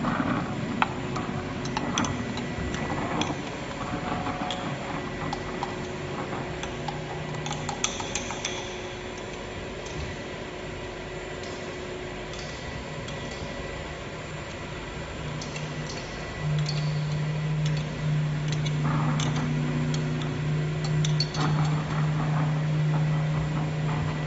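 300-litre vacuum homogenizer mixer running with a steady machine hum and scattered metallic clicks and knocks; about two-thirds of the way in, a deep, even hum grows louder.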